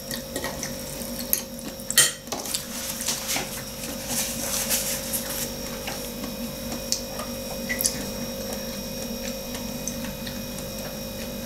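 Eating from a plate with a metal fork: a sharp clink of fork on plate about two seconds in, then scattered small clicks and soft chewing noises. A steady electrical hum runs underneath.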